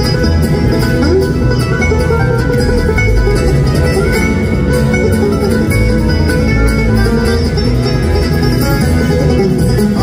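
Bluegrass band playing an instrumental passage with the banjo to the fore, over acoustic guitar, upright bass, fiddle and mandolin, amplified through an arena PA.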